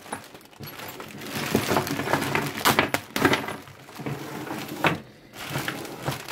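Clear plastic bag crinkling as it is pulled open, with loose steel sockets and hand tools clinking and clattering against each other and onto a wooden workbench in a rapid run of sharp knocks.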